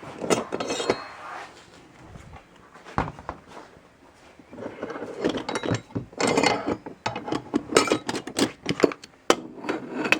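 Metal garage door hardware clinking and clattering as it is handled and rummaged through, a quick irregular string of knocks and rattles that gets busier about halfway through.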